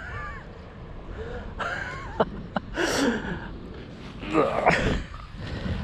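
A man's short gasps, grunts and breathy exhales as he strains to haul a heavy catch out of the water on a rope, with a couple of small clicks between them.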